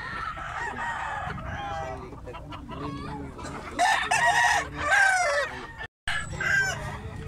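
Several roosters crowing at once, their calls overlapping, loudest about four to five seconds in. The sound drops out briefly just before six seconds.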